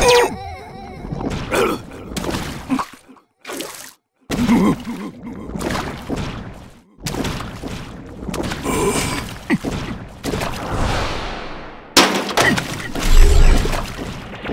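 A quick run of cartoon sound effects: short crashes, knocks and thuds with brief pitched tones, cut together with sudden stops and gaps.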